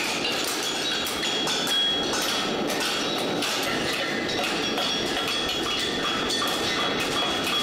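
Hammer blows on a red-hot steel horseshoe over an anvil's horn, a few a second, each leaving a high metallic ring, over a steady rushing noise.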